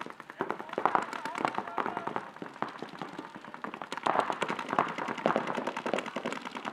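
Paintball markers firing in rapid strings of pops, several guns at once, the shots running on without a break.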